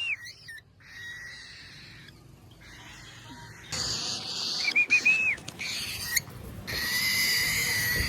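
Cockatiel calling: a quick run of short whistled chirps about five seconds in, and longer harsh, screechy calls near the end.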